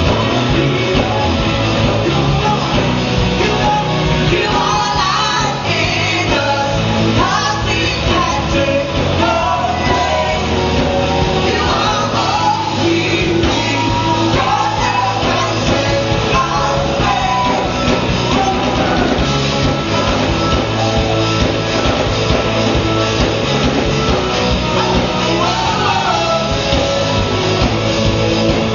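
Live band playing a rock song with a singer's voice over guitar and drums, loud and steady throughout.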